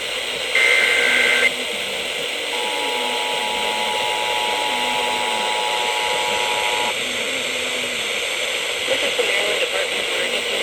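Emergency Alert System test received over FM radio, under a constant static hiss. First comes a SAME header data burst, a warbling digital squawk about a second long. Then, after a short gap, the two-tone EAS attention signal sounds steadily for about four and a half seconds and stops.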